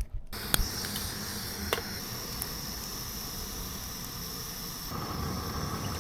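Steady hiss of a portable camping gas stove burner heating a pot of miso soup, with a couple of light clicks in the first two seconds.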